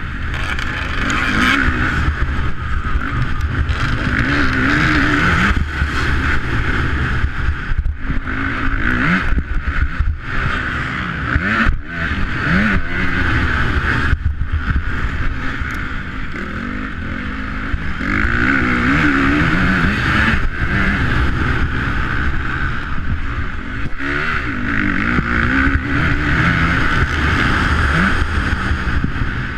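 A motocross bike's engine, heard up close from the rider's own bike at racing speed, revving up and down over and over as the throttle is opened and shut, with a few brief dips where the throttle is cut.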